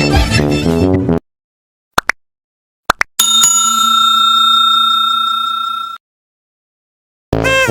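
Background music stops about a second in. After two short blips, a single bell-like tone rings steadily for about three seconds, fading slightly before it cuts off abruptly. Music starts again near the end.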